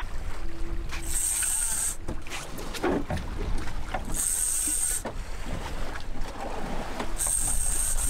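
Fishing reel whirring in three short high-pitched bursts about three seconds apart while an angler fights a hooked fish on a bent trolling rod, over a steady low rumble of wind on the microphone.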